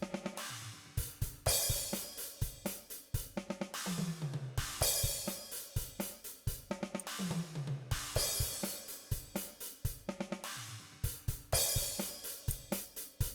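Virtual drum kit (DrumGizmo samples) playing a repeating groove of kick, snare and hi-hat, with a cymbal crash about every three and a half seconds. The overhead track carries a very wet, short plate reverb.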